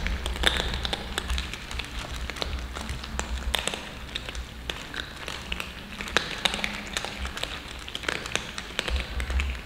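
Several cats crunching dry kibble from a metal tray: a dense, irregular patter of crisp clicks and crunches. A low rumble comes and goes underneath.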